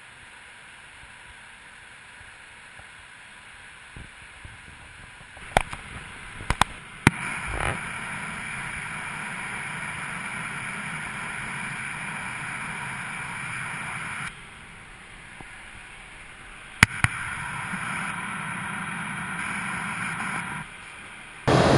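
Steady rushing cockpit noise of a Gulfstream G550 business jet in cruise, the hiss of airflow and air conditioning, its level stepping up and down several times. A few sharp clicks or knocks come about six to seven seconds in and once more around seventeen seconds.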